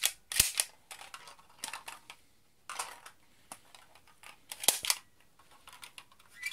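Sharp plastic clicks and short rattles from a toy ping-pong ball pistol being worked by hand, with two crisp clicks standing out, about half a second in and near the five-second mark.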